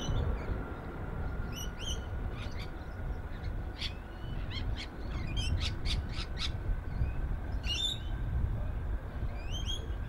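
Birds chirping in short calls, with a quick run of sharp chirps about halfway, over the low steady rumble and faint rising whine of a distant Singapore Airlines Airbus A380's Rolls-Royce Trent 900 engines at takeoff power.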